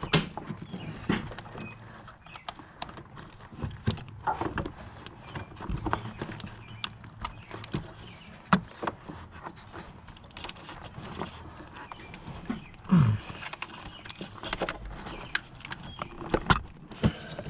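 Socket and extension on a spark plug, clicking and knocking irregularly against metal as the plug is worked loose; the plug is tight.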